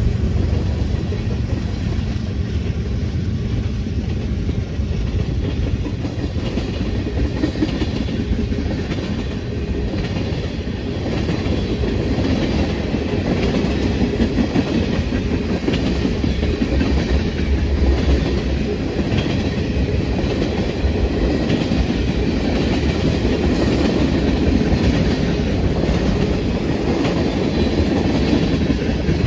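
Railroad cars rolling steadily past, with a continuous rumble and a running series of wheel clicks over the rail joints.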